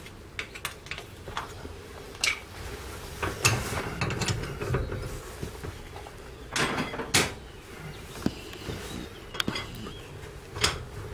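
Metal clicks and knocks of a socket and bar working the lug nuts on a car wheel, with a few louder knocks about three and a half and seven seconds in.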